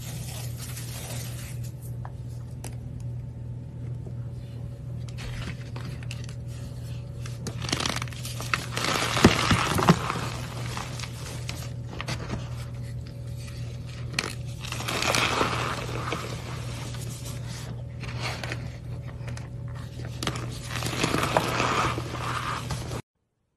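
Hands crushing and crumbling soft chalk blocks coated in powder and glitter, making dry crunching and scraping. It is quieter at first, then comes in three louder spells of crunching: about a third of the way in, about two-thirds in, and near the end. A low steady hum runs underneath.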